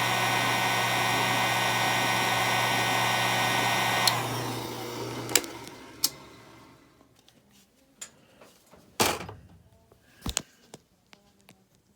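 Drill press running with a roll-crimper head spinning in its chuck to warm the crimper up; the motor is switched off about four seconds in and winds down over the next couple of seconds. A few sharp clicks and knocks follow.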